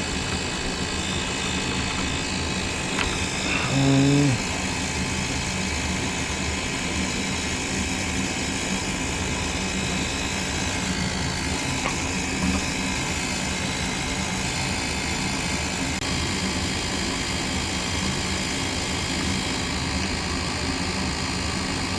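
Goodman gas furnace's draft inducer motor running with a steady, loud whir. The technician says it is over-amping and due to fail. A brief voice cuts in about four seconds in.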